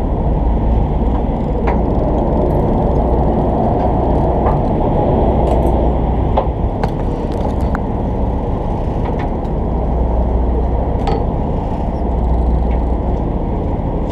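Steady low rumble of a deep-sea fishing boat's idling engine, mixed with wind and water noise, with a few faint ticks.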